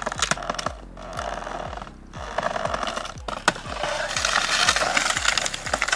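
Background music with a steady electronic kick-drum beat, layered over a dense noisy wash.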